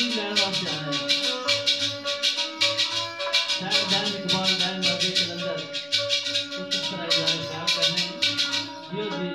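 A man singing into a microphone with sitar accompaniment and a fast, steady shaken rattle keeping the rhythm. The rattling stops just before the end, leaving the sitar ringing on.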